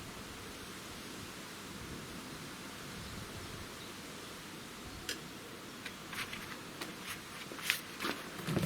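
Steady hiss of outdoor noise, with a handful of light clicks and knocks in the second half as skewers of chicken wings are set across the mouth of a tandoor.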